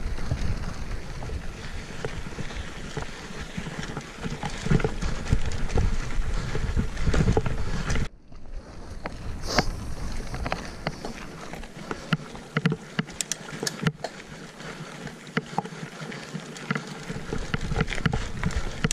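Mountain bike ridden over a dirt and stone track: wind rumbling on the microphone, with tyre noise and the bike's clicks and rattles over rough ground. About eight seconds in the sound cuts out abruptly and comes back quieter, the wind rumble mostly gone and sharp clicks and knocks standing out.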